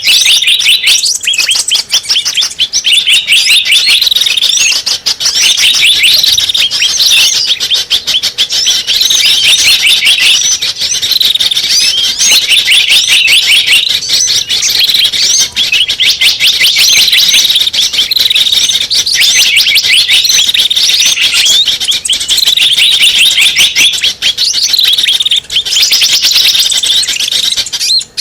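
Many small birds chirping and twittering rapidly and without pause, a dense, loud, high-pitched chorus of overlapping calls: a bird-lure (pikat) recording used to draw in small birds.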